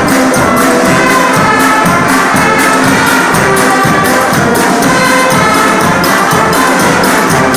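Loud music playing continuously with a steady beat.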